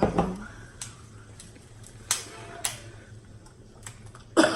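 Close-up eating sounds from a seafood boil: scattered wet clicks and smacks of chewing and handling food, with a louder cluster of sounds near the end.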